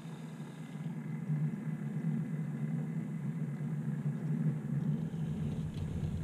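Model railway locomotive running with a steady, low engine-like hum that gets louder about a second in, with a deeper rumble joining near the end.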